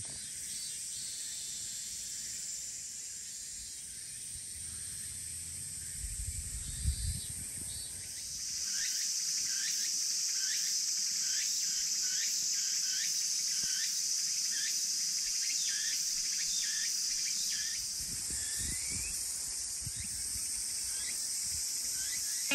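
Summer insect chorus: a steady high-pitched buzz that grows louder about a third of the way in, with a run of short chirps repeating about twice a second through the louder stretch. A brief low rumble comes just before the chorus swells.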